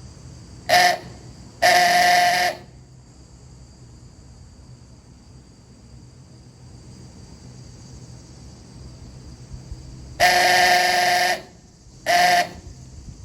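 Harbor Freight ooga horn sounded in four blasts at a steady pitch: two near the start, one short and one about a second long, then after a long gap a second-long blast and a short one.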